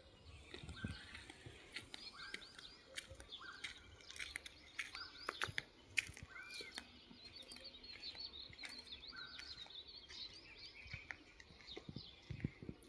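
A mix of small birds chirping and calling over one another in short, high notes, with a few sharp clicks; the loudest click comes about six seconds in.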